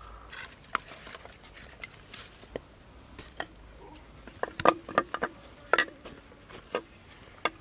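Dry wooden sticks knocking and clacking together as they are laid on a small smoking fire. Scattered sharp clicks, with a run of louder knocks about four to six seconds in.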